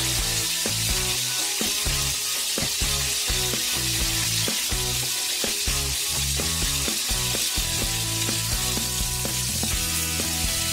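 Pork steaks sizzling in hot oil in a frying pan, a steady crackling hiss. Background music with held bass notes plays underneath.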